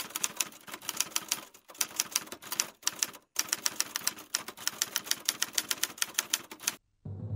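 Typewriter keys clacking in rapid runs of strokes, broken by two short pauses. Music starts up near the end.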